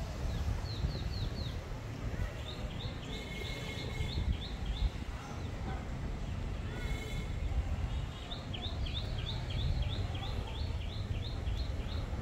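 A bird calling runs of short, falling high notes, about four a second, with a different short call once in the middle. Wind rumbles on the microphone throughout.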